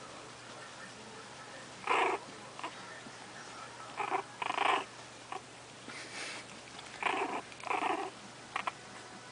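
Puppies growling in play, about six short gruff growls, the first and loudest about two seconds in, the rest coming in twos between four and nine seconds.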